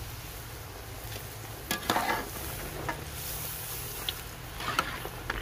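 Cornflour-coated potato fries deep-frying in very hot oil in a karahi, a steady sizzle, with a metal skimmer scraping and clinking against the pan as the fries are stirred, loudest about two seconds in and again near the end.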